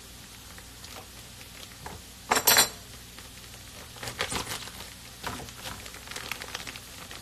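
Plant-based bacon package being handled and pulled open: plastic rustling and crinkling, with a loud clatter a little over two seconds in and a run of small clicks and rustles from about four seconds on.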